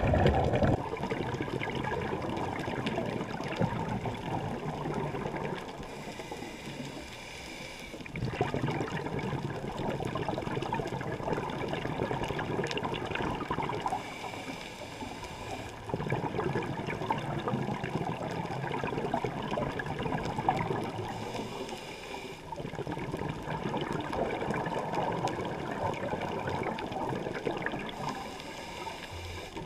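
A scuba diver breathing through a regulator underwater: long spells of exhaled bubbles gurgling, broken about every seven or eight seconds by a shorter, quieter hissing inhale.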